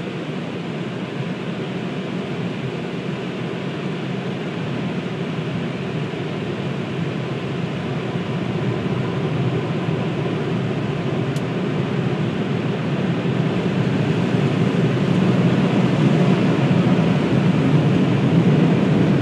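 Automatic car wash machinery running, a steady rushing noise that slowly grows louder.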